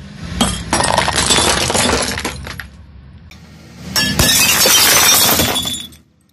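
Glass fluorescent tubes shattering and crunching as a car tyre rolls over them, in two loud bursts of about two seconds each.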